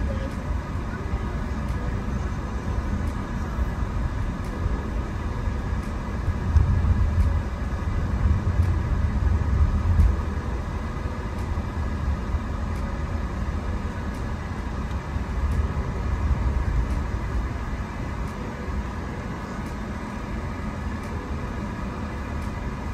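Car cabin noise while driving: a steady low road and engine rumble, louder for a few seconds about a third of the way in.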